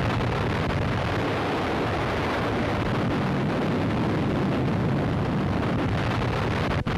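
Explosive charges blasting rock on an iron-ore ridge: a loud, continuous rumbling roar with no separate bangs, broken once by a brief gap near the end.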